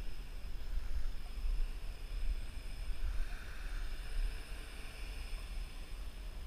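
Wind buffeting the microphone in a gusty low rumble, with the faint buzz and whine of the Parrot AR.Drone 2.0 quadcopter's four propellers over it, growing a little louder about halfway through.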